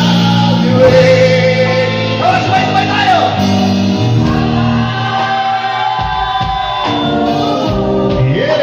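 Live rock band playing loudly, with a singer holding long notes into a microphone over electric guitar and the band.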